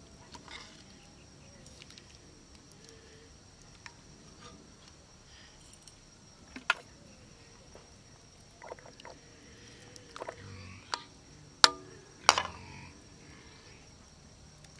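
Steel ladle clinking against the rim of an iron kadai while chicken curry is scooped and served onto rice: a handful of sharp metal clinks, most in the second half, the loudest about three-quarters through.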